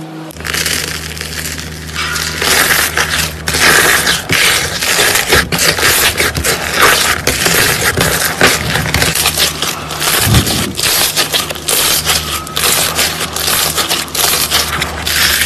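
Fingers scraping, pressing and squeezing bubbly slime in a plastic tub, giving dense, irregular crackling and popping as the tiny bubbles burst.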